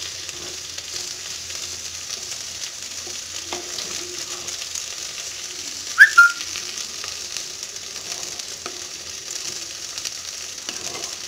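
Gongura greens and tomatoes in sesame oil sizzling steadily in a clay pot while a wooden spatula stirs them, with an occasional faint knock of the spatula against the pot. About six seconds in, one brief high whistle-like chirp, the loudest sound, cuts across.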